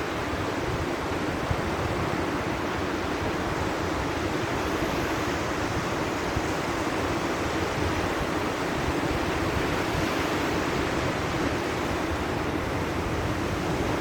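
Sea surf washing on the shore, a steady rushing noise with wind mixed in.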